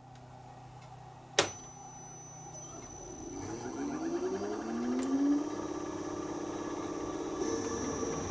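Inverter air-conditioner outdoor unit starting up: a faint steady hum, a sharp relay-like click a little over a second in, then a high steady whine. The compressor spins up with a rising tone that levels off into a steady running sound.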